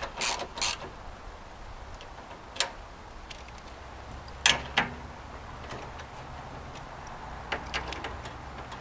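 Scattered light clicks and taps of metal and glass as the window glass is worked into the window regulator's mounting clamps inside a truck door, with two sharper knocks close together about four and a half seconds in.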